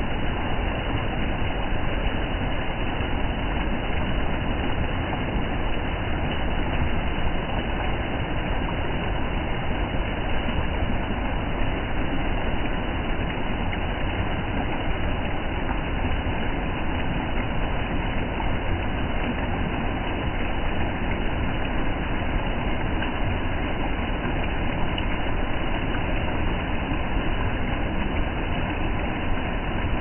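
Waterfall cascading over rocks: a loud, steady rush of falling water.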